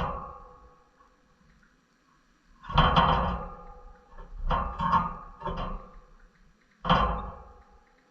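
Background music: slow guitar chords, a dying chord at the start and then four more, each struck and left to ring out.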